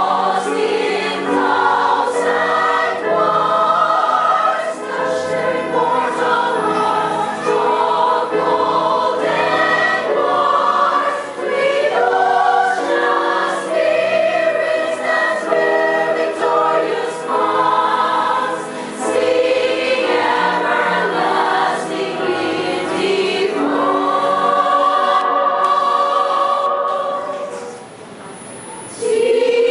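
Mixed choir of women and men singing together, with a short break near the end before the singing resumes.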